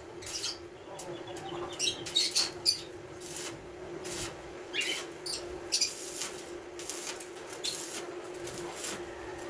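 Electric arc welding on a steel cage frame: the arc crackles and spits in short, irregular spells over a steady hum, with birds chirping among the crackles.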